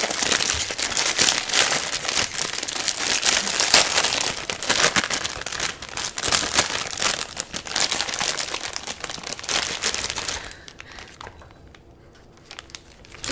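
Plastic instant-ramen packets crinkling as they are handled and opened, a dense rustling that dies down near the end.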